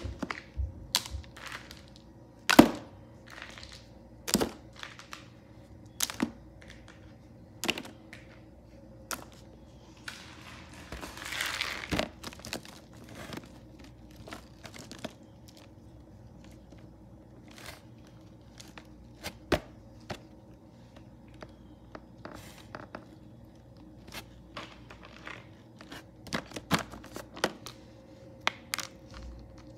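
Hard plastic toy animals clacking and knocking against each other as hands rummage through a box of them: irregular sharp knocks, the loudest about two and a half seconds in, with a longer rustle of toys shifting around eleven to twelve seconds and a quick run of knocks near the end.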